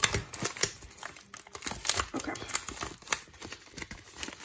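Plastic bubble mailer crinkling and crackling as it is cut and pulled open by hand, in quick irregular rustles and snaps.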